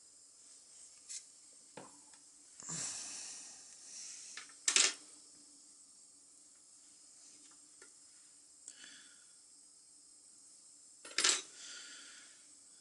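Small metal clicks and clinks as the metal insert of a WWII-era lighter is handled and turned in the fingers, with a short rubbing rustle about three seconds in and two sharper clinks, about five and eleven seconds in.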